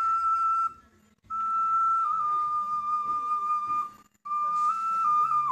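A slow melody of long, steady, whistle-like notes, each held for a couple of seconds and stepping slightly up or down in pitch, with two short breaks: one about a second in and one near the end.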